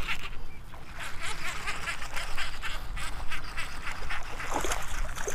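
Baitcasting reel cranked fast to reel in a hooked bass, a quick run of ticks about four a second.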